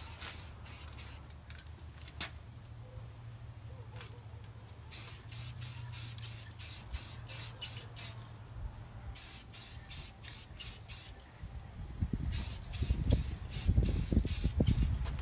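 Aerosol spray paint can spraying in short hissing bursts, a fraction of a second each, fired in quick runs of several. A low rumble builds near the end.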